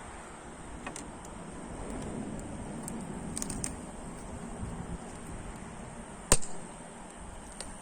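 Firewood burning in a stainless-steel shichirin, crackling with scattered small pops and one sharp, loud crack about six seconds in, over a steady rush.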